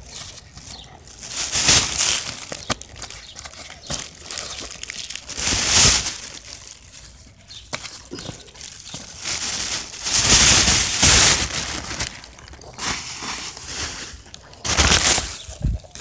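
Close rustling and rubbing in several loud, irregular bursts a few seconds apart.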